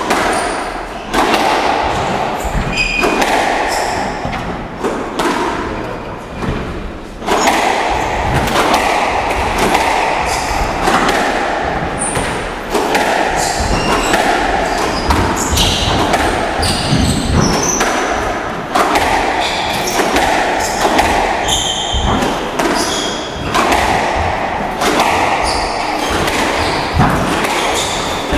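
Squash rally: the ball is struck by rackets and thuds against the court walls in quick, irregular succession, with short high squeaks between the hits.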